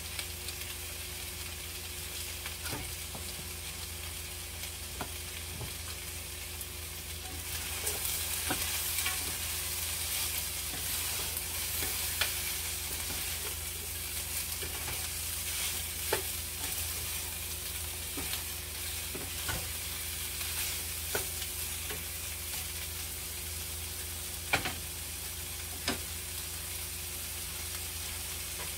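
Broccoli and beef sizzling in a frying pan, the sizzle growing louder for about ten seconds from around eight seconds in while the food is stirred with a wooden spatula. A few sharp knocks of the spatula against the pan come through, two of them near the end.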